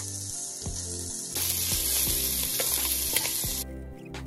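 Sliced hot Italian sausage frying in oil in an enamelled cast-iron Dutch oven, sizzling steadily, with a wooden spatula scraping and knocking against the pan now and then. The sizzle grows louder about a second and a half in and cuts off suddenly near the end.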